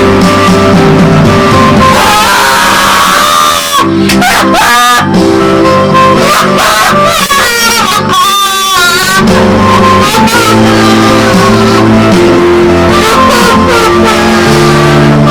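Loud rock music led by guitar over held chords. A wavering, sliding melody line rises above it from about two seconds in until past the middle.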